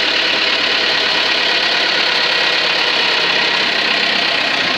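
Engine of a lifting machine running steadily at a constant speed, holding a heavy load aloft.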